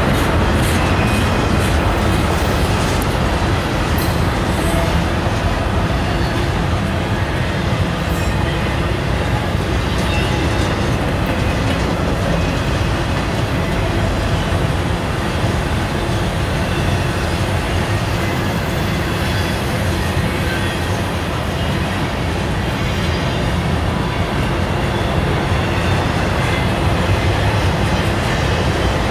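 Freight train cars rolling steadily past on the rails, a continuous heavy rumble with faint high wheel squeal at times.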